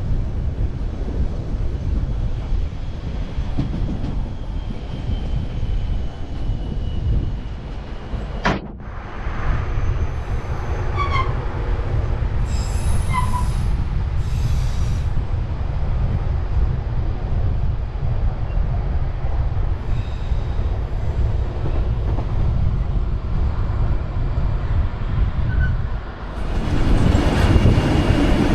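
White Pass & Yukon Route narrow-gauge passenger train rolling along, a steady low rumble of wheels on rail heard from aboard, with a few short wheel squeals from about 11 to 13 seconds in. A sharp click about 8 seconds in; the rumble grows louder near the end.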